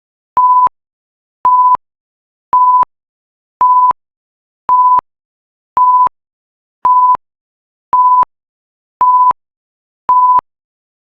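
Timer alarm beeping: a single steady electronic tone, about a third of a second long, repeated roughly once a second, signalling that the countdown has ended.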